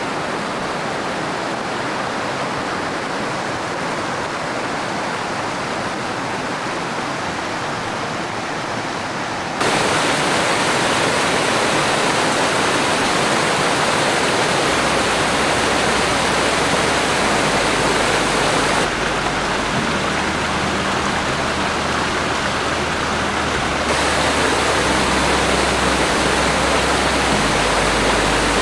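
Rushing mountain stream and a small waterfall: a steady rush of water splashing over rocks, stepping up louder about ten seconds in. Low steady tones that change in steps run under it in the second half.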